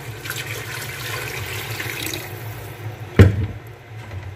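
Water poured from a jug into a metal pot of fried mutton, splashing over the meat and oil: the half litre of water added to the nihari. About three seconds in there is a single sharp knock.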